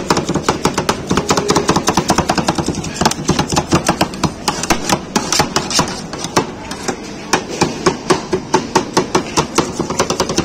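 Two metal spatulas chopping ice cream on the frozen steel plate of a rolled-ice-cream counter: a rapid, steady clacking, several strikes a second.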